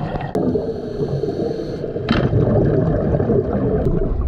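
Scuba diver's regulator exhaling streams of bubbles, heard underwater as a dense, muffled gurgling.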